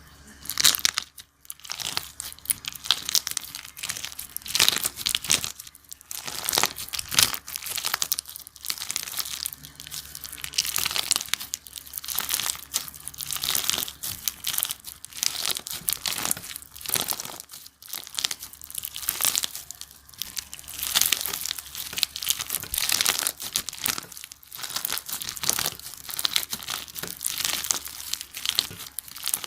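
Hands squishing and stretching slime, a continuous run of sticky crackles and pops.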